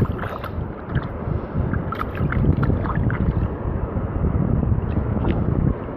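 Water sloshing with small splashes as a hand moves caught fish about in shallow water, over a steady low rumble of wind on the microphone.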